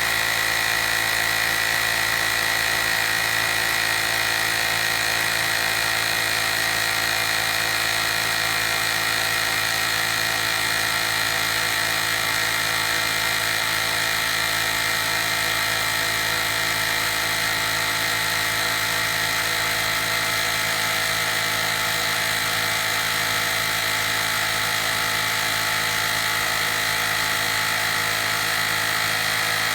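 Small battery-powered electric tyre inflator's compressor running steadily, a constant whine that holds one pitch throughout.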